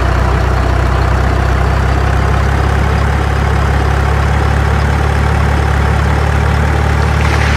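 Heavy truck engine idling steadily, a constant low rumble; a higher hiss joins near the end.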